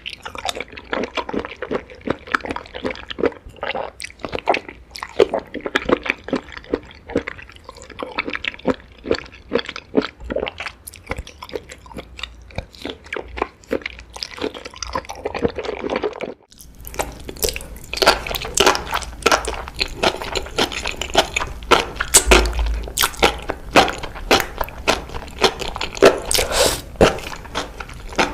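Close-miked chewing and crunching of seaweed: rapid wet crunches and squishy bites one after another. A brief break comes about sixteen seconds in, after which the crunches are sharper and brighter.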